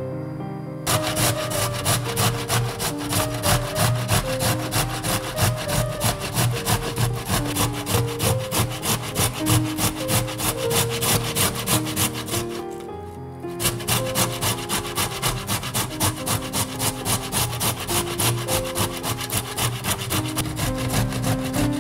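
Tomato halves being grated on a stainless steel box grater that stands on a wooden board: a fast, rhythmic rasp of about four strokes a second. It stops for about a second just before halfway, then starts again.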